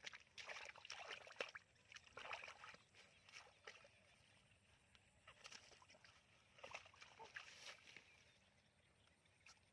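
Faint, irregular sloshing and squelching of wet mud and shallow water stirred by hand, in short scattered bursts that thin out toward the end.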